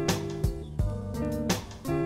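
Background music: guitar chords over a steady drum beat.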